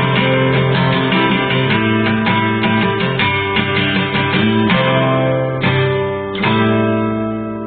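Guitar music: a guitar strummed in quick, even strokes. A new chord is struck about six and a half seconds in and left ringing.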